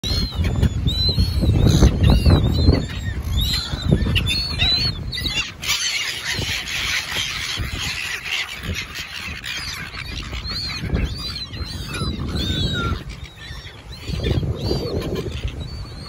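A flock of silver gulls calling: many short, high cries that rise and fall, overlapping one another, over a low rumble.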